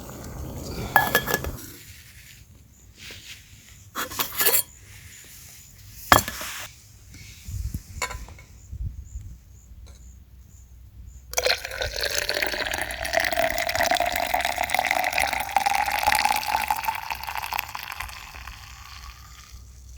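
A few sharp clinks, then liquid poured steadily into a container for several seconds, its pitch rising as the container fills.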